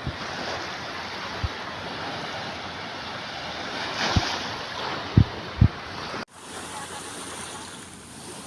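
Ocean surf washing steadily, with a few short low thumps on the microphone, the loudest two close together about five seconds in. The sound breaks off abruptly about six seconds in and resumes with a slightly different texture.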